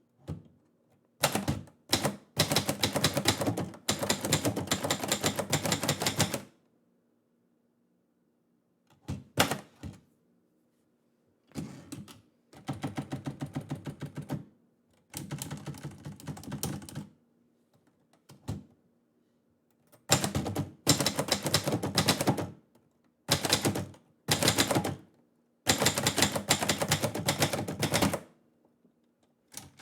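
Manual typewriter being typed on: rapid keystrokes clattering in runs of a few seconds each, broken by short pauses.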